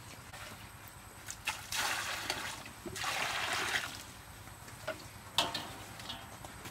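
Water poured from a plastic dipper through a woven basket and splashing into a metal bowl, in two pours of about a second each. A couple of light knocks follow near the end.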